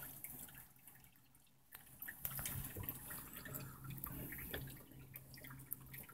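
Faint water dripping with small scattered clicks and knocks. A faint low hum comes in about two seconds in.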